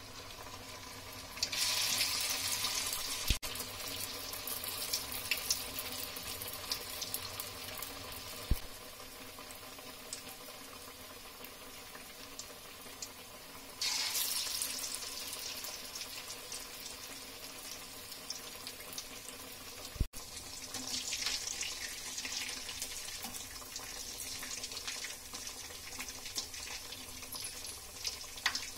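Black-eyed pea vadas deep-frying in hot oil: a steady sizzle that swells louder about a second and a half in, again about 14 seconds in and after about 20 seconds, then settles. A few sharp clicks fall in between.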